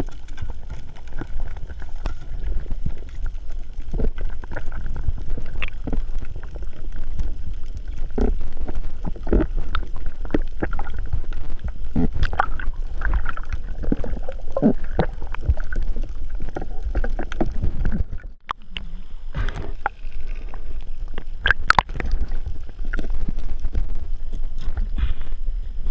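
Underwater sound heard through a camera's waterproof housing while a spearfisher hauls in line and handles a speargun: a steady low rumble of moving water with many irregular clicks and knocks. The sound drops out briefly about two thirds of the way in.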